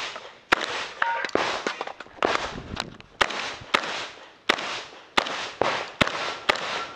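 AK-pattern semi-automatic shotgun firing rapidly: about a dozen sharp shots with uneven gaps of roughly half a second, each followed by a short echo.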